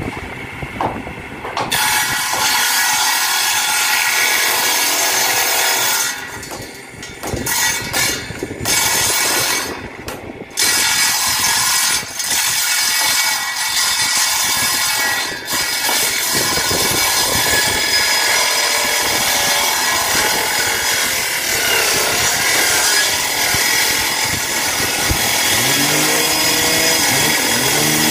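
An electric combination saw-planer woodworking machine cutting along long wooden boards as they are fed through. The motor runs steadily, and the cutting noise starts about two seconds in, drops out briefly a few times, then carries on.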